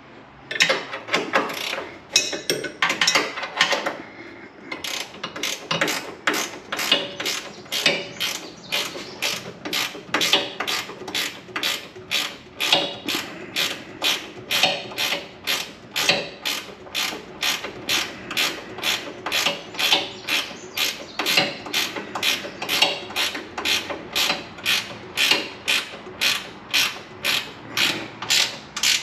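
Ratchet wrench clicking as bolts are tightened: a few uneven strokes at first, then a steady rhythm of about two ratcheting back-strokes a second.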